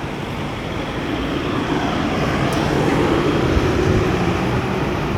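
A motor vehicle's engine running close by on a busy street, growing louder over the first few seconds and then holding steady.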